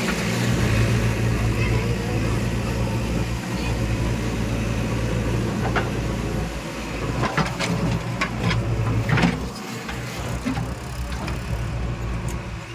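JCB backhoe loader's diesel engine running steadily while its arm lifts a bucket of soil. A run of sharp knocks and clanks comes about seven to nine seconds in.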